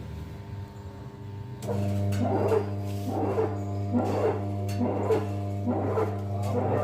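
Front-load washing machine running with a steady low hum and a rhythmic grinding rasp about once a second, the 'ghar ghar' noise that is the fault being diagnosed. The hum comes in about two seconds in.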